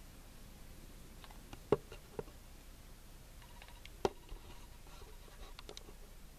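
Quiet room tone with a few faint, scattered clicks and ticks; the clearest come at about one and a half, two, and four seconds in.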